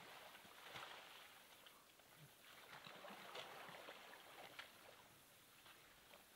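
Near silence: faint outdoor ambience with a few soft ticks and rustles.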